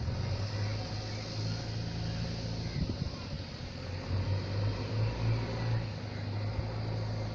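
Steady low mechanical hum that swells and fades a little, under a faint even hiss.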